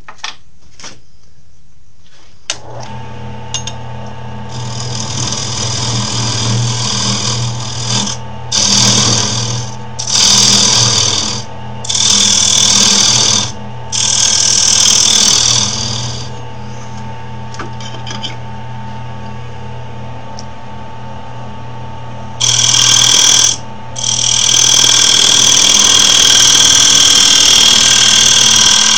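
Wood lathe motor starting about two seconds in and running with a steady hum, while a turning tool is pressed into the spinning wood in several short passes and one longer pass near the end, each giving a hissing scrape as it hollows out the recess in the middle of the piece.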